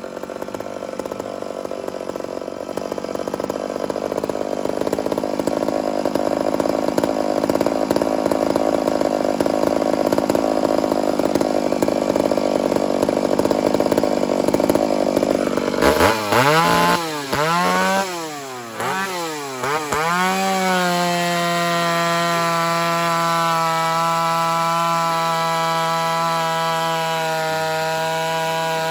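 Ported Homelite two-stroke chainsaw running a skip-tooth chain under load, cutting through dry white oak. About 16 s in it comes out of the cut, the revs swing up and down a few times, and then it holds a steady high-pitched note.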